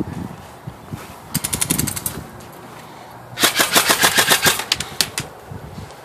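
Airsoft rifle firing on full auto in two bursts of rapid, evenly spaced shots: a short burst about a second and a half in, then a longer, louder burst of nearly two seconds.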